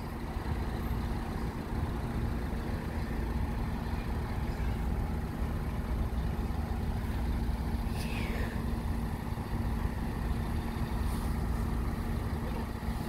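Diesel multiple unit's underfloor engine running with a steady low rumble and hum as the train creeps toward the level crossing. A brief falling squeak sounds about eight seconds in.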